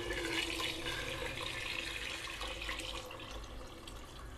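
Water poured in a stream from a steel vessel into an aluminium pressure cooker full of gravy, splashing into the liquid; it eases off a little after about three seconds.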